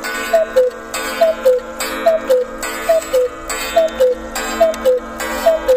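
Black Forest cuckoo clock calling the hour: its two pipes sound a falling two-note "cuck-oo" over and over, about seven calls at a little under one a second, each with a clack from the mechanism.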